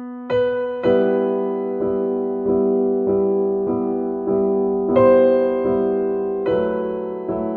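Soft background piano music: sustained chords struck about every half second in a slow, gentle pattern.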